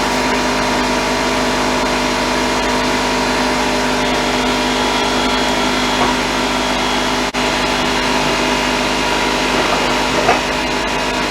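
Stick welding arc burning steadily with a 1/8-inch 7018 rod: a continuous, even hiss with steady hum tones underneath, briefly dipping once near the middle.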